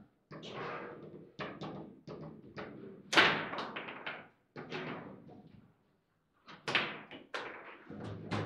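Table football in play: the ball cracks off the plastic figures and the table walls, with rods clacking as they are slid and snapped, making an irregular run of sharp knocks and thuds. The loudest knock comes about three seconds in, and there is a brief lull a little past halfway.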